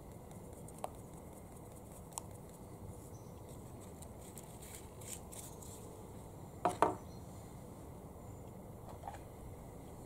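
A few light clicks and a sharp double knock about two-thirds of the way through, over a faint steady background.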